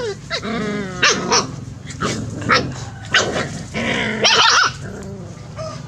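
Puppies play-fighting, with growls, yaps and wavering whines, and a louder high-pitched cry about four seconds in.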